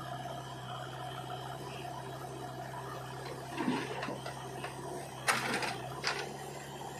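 JCB 3DX backhoe loader's diesel engine running steadily as its backhoe lifts a bucket of mud and swings it toward the tractor, with a few short knocks, the sharpest about five seconds in.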